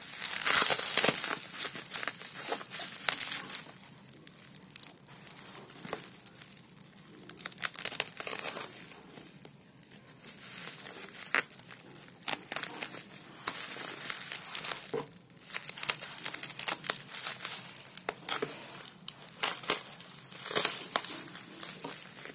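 Plastic bubble-wrap packaging crinkling, crackling and tearing as it is cut and pulled open by hand with a box cutter. The rustling comes in irregular bursts, loudest in the first few seconds.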